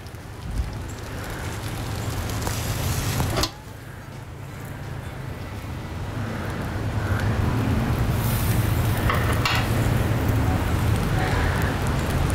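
Hiss and sizzle from a charcoal barrel smoker as butter-rubbed chicken halves are hung over the hot coals, with a few sharp clicks. The hiss breaks off abruptly about three and a half seconds in, then builds up again.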